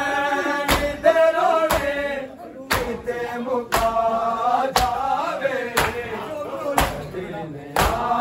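Men chanting a noha together in a drawn-out, mournful melody while the crowd performs matam, striking their bare chests in unison: a sharp slap about once a second, eight times.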